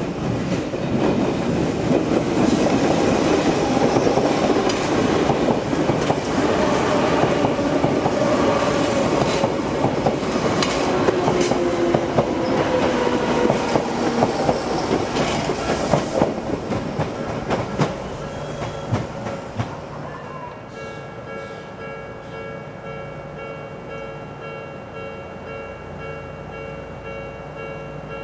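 An Odakyu Line electric train passes a level crossing. Its wheels clatter over the rail joints and its traction motors whine for about sixteen seconds, then it fades away. The level-crossing warning bell rings throughout and is heard on its own once the train has gone.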